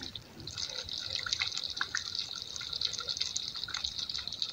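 Thick peanut sauce simmering in a pot, with many small bubbles popping irregularly over a steady soft hiss; the oil has risen to the surface, as it does when mafé is nearly done.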